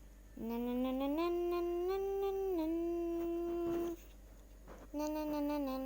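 A person humming a slow tune in two phrases, with held notes that step up and down in pitch. There is a short pause between the phrases, about four seconds in.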